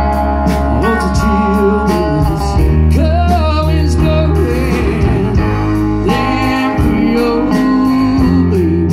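Live band playing through a stage PA: a sung vocal line over guitars and drums, with a strong steady bass.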